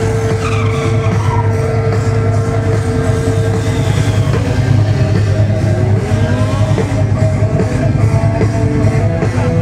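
Loud hard rock music with electric guitar and drum kit.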